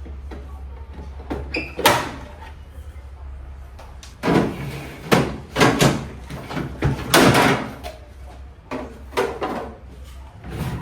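Refrigerator shelves and drawers being pulled out and handled: a string of knocks, slides and clatters, busiest in the middle, over a steady low hum.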